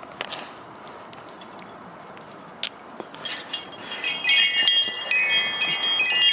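Wind chime ringing: several overlapping high, sustained tones that start about halfway through and grow louder. They follow a few faint clicks and one sharp click.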